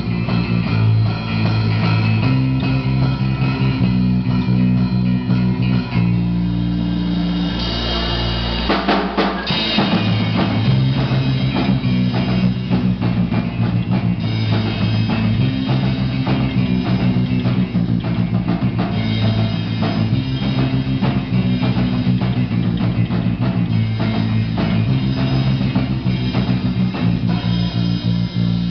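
Live instrumental rock from a small band: electric guitar and bass guitar through amplifiers over a full drum kit. About nine seconds in the bass drops out for a short break, then the full band comes back in.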